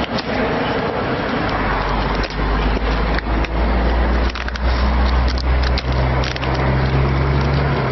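Heavy truck engine running steadily, with several sharp knocks and clatter in the middle.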